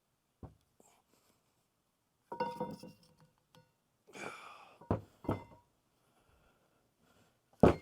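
Metal knocking and clanking on the hydraulic cylinder's gland and rod as the gland is worked off. There are several separate knocks, one clank about two and a half seconds in that rings briefly, and the sharpest knock near the end.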